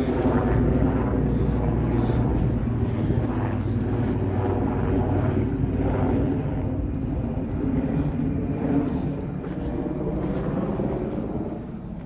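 Steady low drone of an aircraft engine passing overhead, easing slightly near the end.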